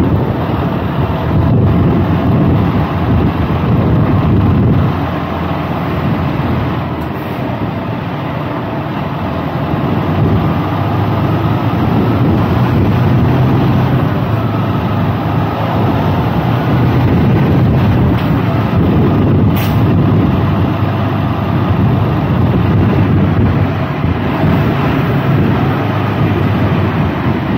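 Semi truck's diesel engine running as the rig moves slowly, heard from outside the cab with wind on the microphone. The engine note eases off briefly and picks up again.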